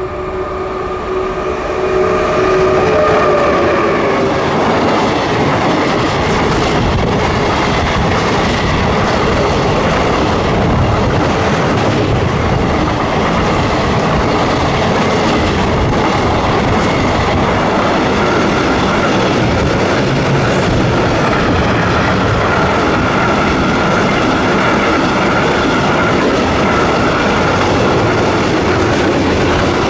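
Electric-hauled freight train passing close by. A steady tone of several notes sounds over the first few seconds as the locomotive draws near and the sound swells. Then the long, even rumble and clatter of container and curtain-sided wagons rolls past, with a faint high squeal running over it in the second half.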